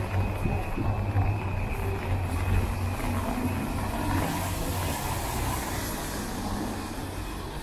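Traffic on a rain-wet street: a steady low rumble, with a passing vehicle's tyres hissing on the wet road, swelling about halfway through and fading near the end.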